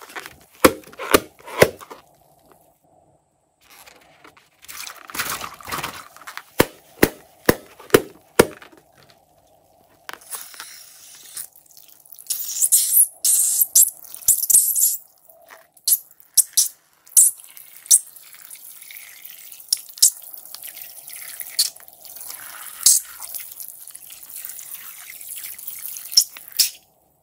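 Sharp clicks and taps from a rubber balloon being handled. Then liquid squirts and drips from the squeezed balloon into a basin of runny slime mixture, with scattered splashy ticks.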